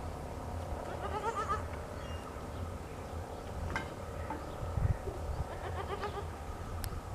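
Goat bleating: a short, quavering bleat about a second in and fainter calls later, over a steady low rumble.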